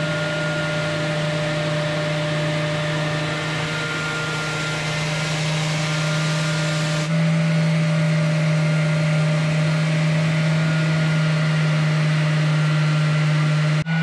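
Random orbital sander running steadily with a constant hum, its pad sanding the varnish off wooden cabin panelling.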